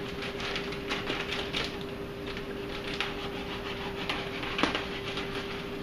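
Aquarium sponge filter bubbling: a patter of small irregular pops and clicks over a steady hum, with one louder click about four and a half seconds in.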